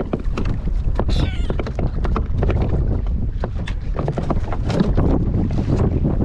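Wind rumbling on the microphone over water lapping at a plastic sit-on-top kayak, with irregular knocks and clicks as gear is handled against the hull, and a short wavering squeak about a second in.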